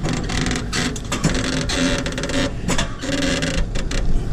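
Fibreglass boat hull creaking and squeaking in broken, wavering tones as it is pulled along against rubber padding, with scattered clicks, over a steady low truck engine hum.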